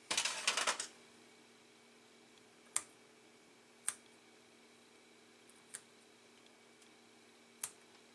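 A short metal clatter as scissors are taken up, then four sharp clicks a second or two apart as the scissor blades snip at the membrane joining a pair of salted mullet roe sacs.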